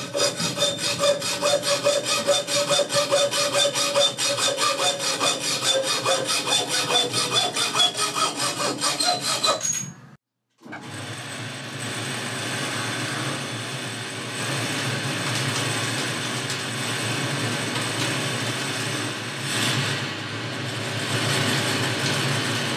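Hand hacksaw cutting through a thin rod held in a lathe chuck, in quick even strokes for about ten seconds. After a short break, the Boxford lathe runs steadily while a tool turns the freshly sawn end of the rod.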